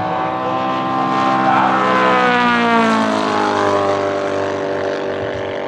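Gasoline engine and propeller of a large-scale R/C P-47 Thunderbolt model airplane flying past: a steady engine drone whose pitch drops in the middle as the plane passes.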